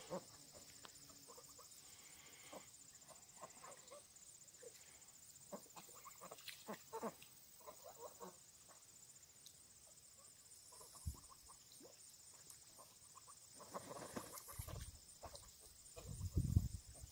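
Young Pekin ducks and Danish geese calling softly now and then, a few short calls at a time, with a cluster of calls a little before the middle. Low rumbling bursts come near the end and are the loudest sounds.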